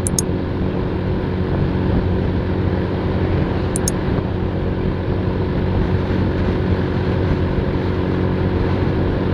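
Motorstar 125 cc motorcycle engine running steadily at cruising speed, with wind and road noise, heard from the rider's seat.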